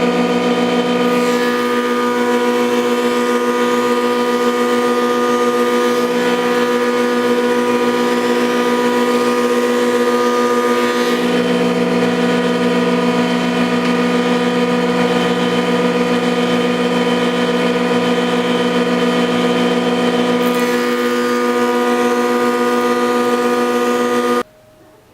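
Stationary power woodworking machine running steadily, with a lower tone that comes and goes as the load changes. It starts and cuts off abruptly near the end.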